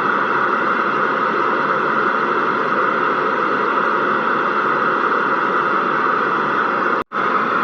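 FM CB radio receiver hissing with steady, loud static, the radio's squelch open on an empty channel. The hiss cuts out for an instant about seven seconds in, then resumes.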